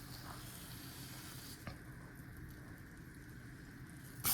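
Wagyu top sirloin steak sizzling steadily in butter in a hot pan as its edges are seared, with a faint click about one and a half seconds in.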